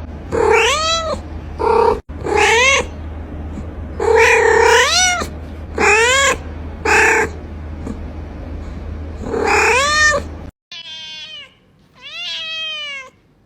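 A domestic cat meowing over and over, with loud, drawn-out meows that rise and fall in pitch, over a low hum. The hum stops abruptly about ten seconds in, and two quieter meows follow.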